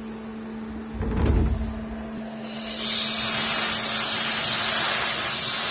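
Compressed-air blow gun hissing steadily for about three seconds, starting a little over two seconds in, as it blows chips and coolant off a freshly milled steel part on a CNC mill's table. Before it, a low thump about a second in, and a steady machine hum underneath.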